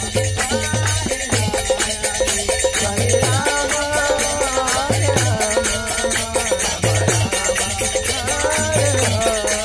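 Group kirtan: several voices singing a devotional chant together, with small brass hand cymbals (kartals) ringing and hands clapping in a steady rhythm.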